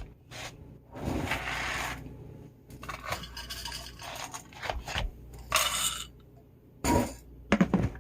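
Several short scrapes with clinks and a knock or two, from a utensil against a dish as cat food is put out.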